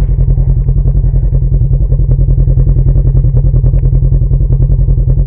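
Polaris 1000's engine running steadily, heard close up through the vehicle, with a heavy, even low throb.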